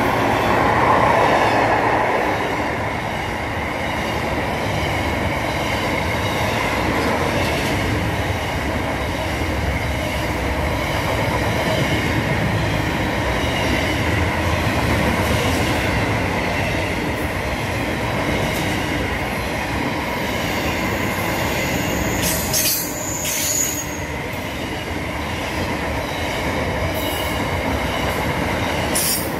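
Freight train's wagons rolling past close by, a continuous rumble and rattle of steel wheels on rail with a steady high-pitched tone running through it. A few sharp clicks come near the end.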